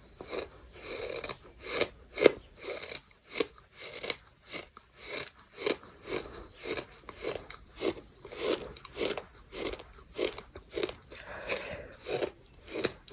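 Close-miked chewing of a mouthful of gritty bird sand, a steady run of crunches about twice a second.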